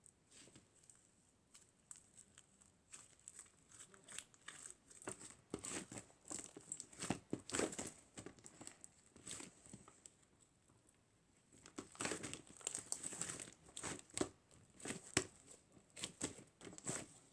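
Irregular crinkling and rustling of handled material, coming in two busier stretches, one around the middle and one in the last third, with quiet gaps between.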